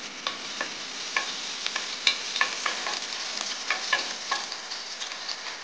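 Chopped pieces frying in hot oil in a nonstick pan, with a steady sizzle. Frequent short pops and taps come through it as a utensil stirs the pan.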